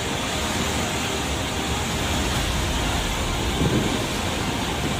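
Floodwater in a swollen river rushing and churning: a steady, dense rush of water noise, with a brief low surge about three-quarters of the way through.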